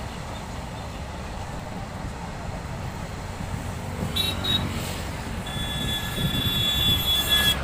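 Loaded freight train of open coal wagons rumbling and clattering past on the track. From about four seconds in, a high steady metallic squeal of the wheels on the rails joins the rumble, loudest near the end.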